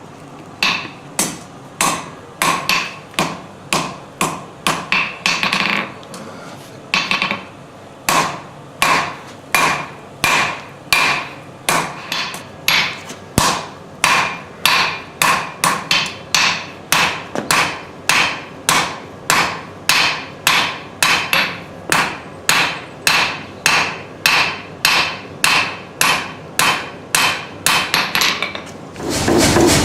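Hammer striking hot stainless steel round bar on an anvil, about two ringing blows a second with a short pause about six seconds in, as the arm and wrist of the crucifix are forged. A loud steady noise starts just before the end.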